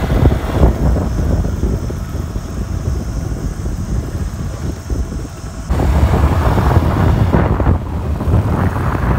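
Wind buffeting a phone microphone while riding on a two-wheeler, over the motorbike's engine and road noise; the rush grows louder and fuller about halfway through.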